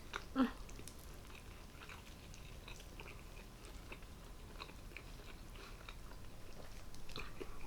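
Faint, close-miked chewing and small wet mouth clicks of a person eating a stacked meat sandwich, with one brief louder sound about half a second in.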